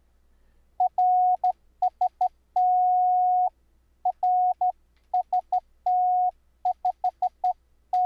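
Morse code sidetone from an external sidetone generator: a single steady beep keyed into dots and dashes, starting about a second in and running on in a string of characters.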